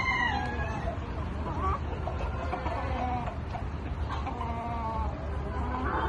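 Flock of crested Polish chickens clucking, with a string of short, drawn-out calls one after another, the loudest right at the start. A steady low hum runs underneath.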